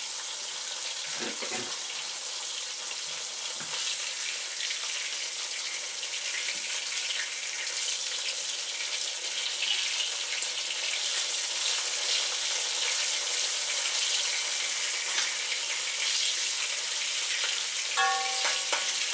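Thin cornstarch-coated chicken slices frying in hot oil in a wok: a steady crackling sizzle that grows a little louder after a few seconds. Near the end a utensil gives a brief metallic ring against the wok.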